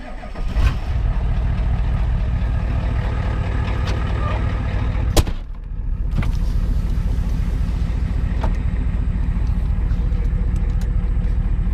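1990 Ford F-350's 7.3 IDI V8 diesel running steadily, a little loud because its exhaust is cut off. There is a sharp click about five seconds in.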